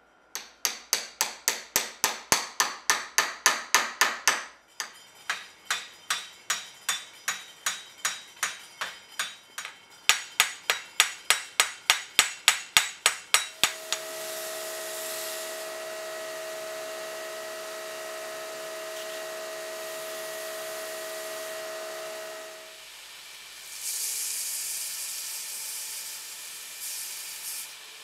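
Small hammer peening the protruding tang end over a washer at the butt of a wooden knife handle: three runs of rapid, sharp metal taps, about four a second. Then a belt grinder running with a steady whine, and a louder grinding hiss from about 24 seconds in as the knife is pressed to the belt.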